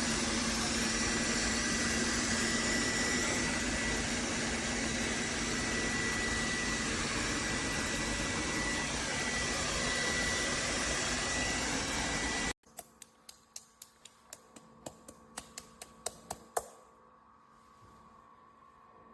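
Dreame L10s Ultra's vacuum motor running loudly and steadily with a high whine, then shutting off abruptly about twelve seconds in. A quick run of sharp mechanical clicks follows over about four seconds, then only a faint hum.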